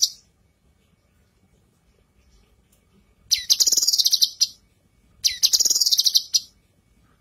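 Female cucak kinoi, a leafbird, singing two rapid, chattering high-pitched phrases of about a second each, a couple of seconds apart.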